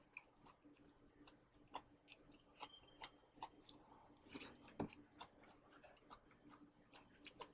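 Very faint, scattered clicks and soft crunches of a person chewing dry-fried green beans.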